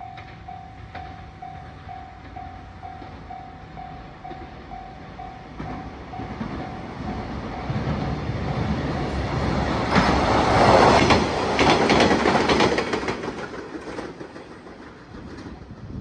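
A level-crossing warning bell rings about twice a second. Then a two-car KiHa 120 diesel railcar set approaches and passes close by, rising to its loudest about ten to thirteen seconds in, with a run of sharp wheel clicks over the rail joints, and fading away near the end.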